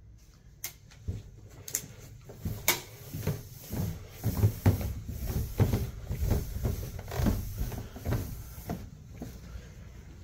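Footsteps going down a stairway, steady low thuds about two a second. A few sharp clicks come in the first three seconds.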